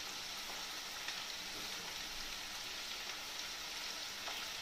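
Breaded chicken breast pieces frying in very hot oil in a pan: a steady sizzle.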